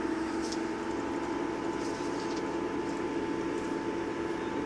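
Class 159 diesel multiple unit heard from inside the passenger saloon: its underfloor diesel engine and drivetrain give a steady drone, with a low hum and a fainter higher whine running together.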